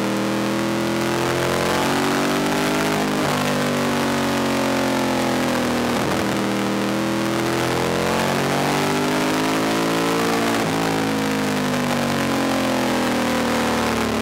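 Race motorcycle engine heard from an onboard camera on the bike, its revs rising and falling through corners, with a short break at a gear change every few seconds. A steady rush of wind and road noise sits under the engine.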